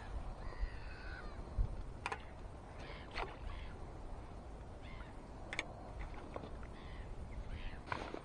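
Crows cawing, about four short harsh calls a second or more apart, over a low rumble of wind on the microphone.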